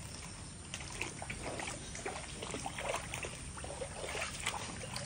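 Footsteps through waterlogged, muddy ground strewn with stones: a run of irregular small splashes and crunches, beginning about a second in.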